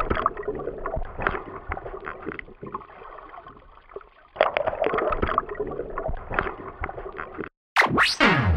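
Water sloshing and gurgling with scattered knocks, muffled, as picked up by an action camera. Near the end it cuts off and a short falling whoosh follows.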